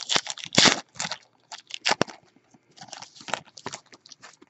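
Crinkly wrapper of a baseball trading-card pack being torn open and handled: a run of irregular crackles and crinkles, loudest in the first second, then lighter rustling as the cards come out.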